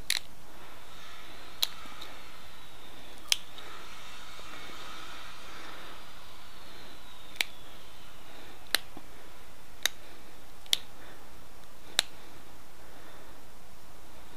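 Stone arrowhead being pressure-flaked with an antler tine: eight sharp clicks, irregularly spaced one to four seconds apart, each a flake popping off the edge.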